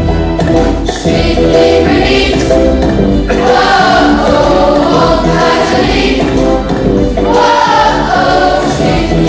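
A large group of young voices singing a song together over instrumental accompaniment.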